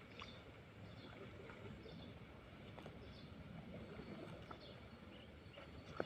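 Faint outdoor background at a riverbank: a low steady hiss with scattered faint chirps and ticks, and a single sharper click near the end.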